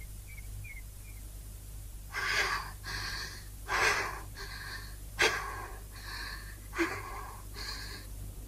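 A young woman panting hard, out of breath after running: about eight heavy gasping breaths, roughly one a second, starting about two seconds in.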